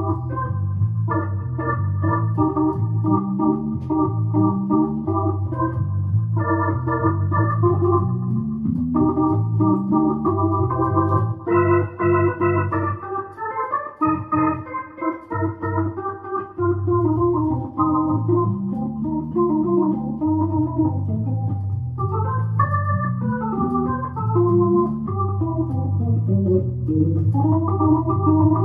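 Stage keyboard played on an organ sound, an instrumental passage with held chords over a stepping bass line. About halfway through it breaks into a run of higher, choppier notes before the chords return.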